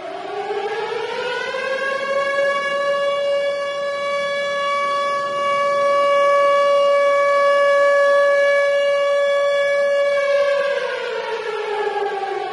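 Tornado warning siren wailing. Its pitch rises over the first two seconds, holds one steady note, then starts to fall about ten seconds in.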